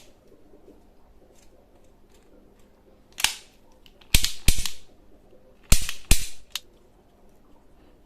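Toy gun firing: about six sharp cracks, some in quick pairs, starting about three seconds in.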